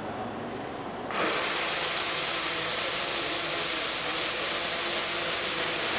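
Robotic arc-welding torch striking an arc about a second in, then welding a steel load beam to its end-clip with a loud, steady hiss as sparks spray.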